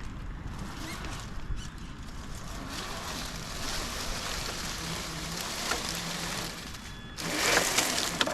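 Wind buffeting the microphone: a steady rumbling hiss, with a louder gust about seven seconds in.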